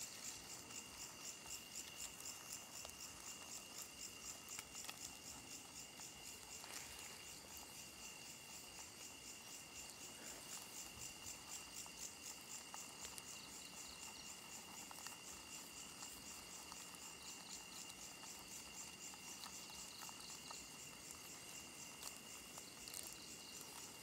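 Night insects calling, faint and continuous: a fast, even pulsing high chirp over a steady high-pitched trill, like a chorus of crickets.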